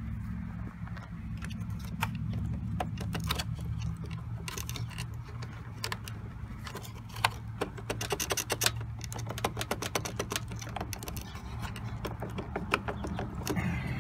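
Plastic engine-bay fuse box of a Toyota Sienna being wiggled and pried out of its clips: a run of sharp plastic clicks and rattles, busiest around the middle, over a steady low hum.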